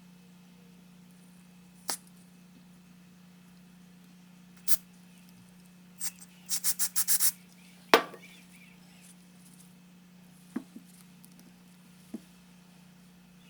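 Scattered sharp clicks and knocks of tools and parts being handled during motorcycle repair work, including a quick run of about six clicks and one louder knock with a short ring, over a steady low hum.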